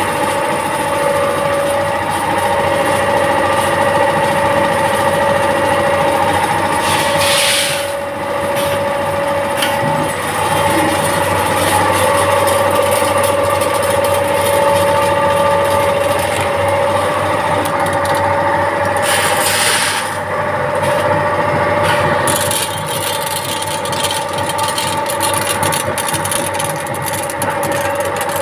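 Automatic pouch-packing machine with a four-head load-cell weigher running: a steady machine hum with several held tones, two brief hiss-like bursts about 7 and 19 seconds in, and fine rapid clicking toward the end.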